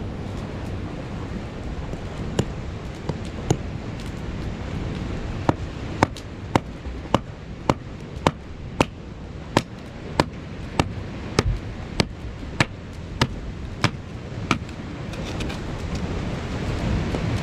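A run of sharp, evenly spaced knocks, about one and a half to two a second, over a steady low rumble of noise. The knocks begin a few seconds in, after two scattered ones, and stop a few seconds before the end.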